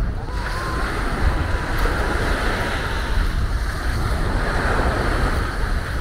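Small waves breaking and washing up a sandy shore in a steady hiss, with wind buffeting the microphone in low rumbles.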